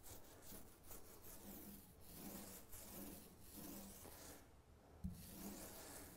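A small foam paint roller rolling wet bilge paint onto the inside of a dinghy hull: a faint, repeated rubbing hiss with each back-and-forth stroke. There is a short pause, then a single light knock about five seconds in.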